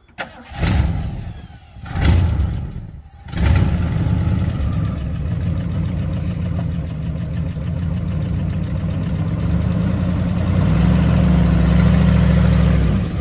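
Old Ford F100 pickup's engine revved in two short bursts, then running steadily, growing louder about ten seconds in as the truck is driven off under its own power.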